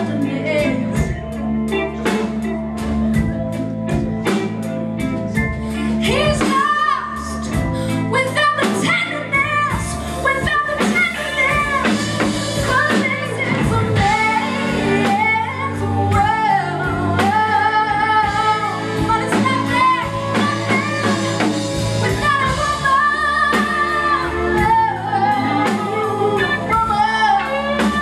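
Live band music: a woman singing lead over electric guitar, keyboard and drum kit, the drums steady from the start and her vocal line coming in about six seconds in.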